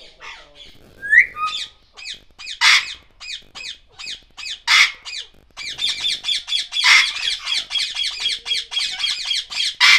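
Aviary parrots calling: a short rising whistle about a second in, loud harsh squawks roughly every two seconds, and from about halfway a fast, continuous chatter of many short calls.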